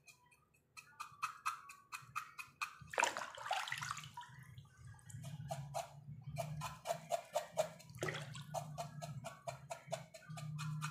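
Water splashing and sloshing in a bucket as a cow's snout is dipped and rubbed clean by hand, with a loud splash about three seconds in and another about eight seconds in. Behind it runs background music with a quick, even percussive beat.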